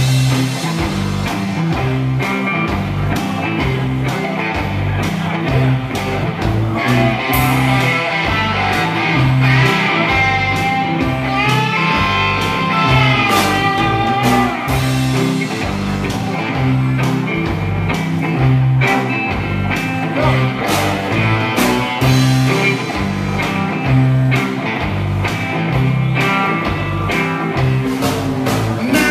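Live rock band playing: electric guitars over a drum kit and a bass line, with a steady beat. About halfway through a lead guitar line bends its notes up and down.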